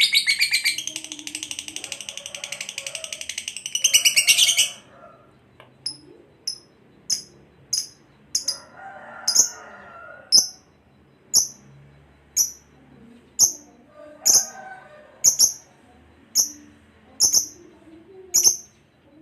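Lovebird giving a long, rapid chattering trill (the 'ngekek' song) that cuts off about four and a half seconds in, followed by a series of sharp, high single chirps at about one a second.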